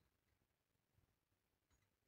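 Near silence, with a very faint tick about three-quarters of the way through.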